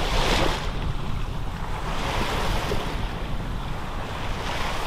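Small waves washing in over the shallows, swelling three times about two seconds apart, with wind rumbling on the microphone.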